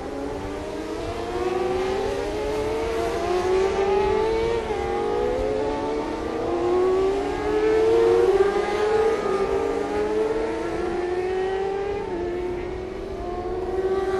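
600cc supersport racing motorcycles at high revs. Their engine notes climb steadily, drop sharply at each upshift about every four seconds, and climb again.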